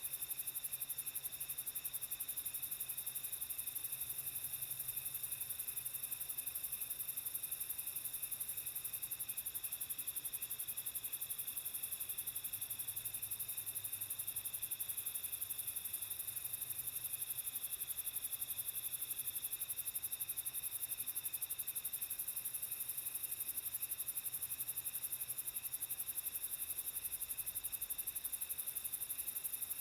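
Night insects such as crickets chirping together in a dense, steady high-pitched trill, with a couple of steadier chirping tones below it and a faint low hum underneath.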